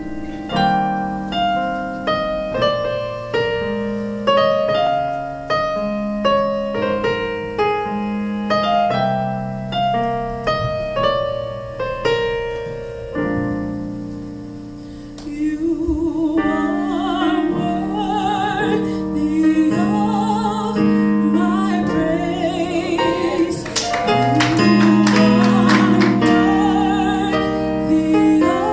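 Piano playing a slow introduction of struck, fading chords, joined about halfway through by singing with a wide vibrato over the piano.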